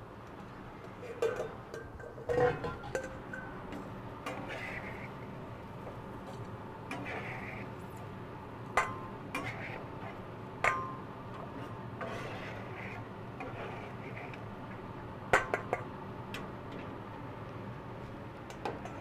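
Scattered metal clinks and scrapes of cooking utensils and a pot cover on a flat-top griddle. A few of the clinks ring briefly, and there is steady background noise underneath.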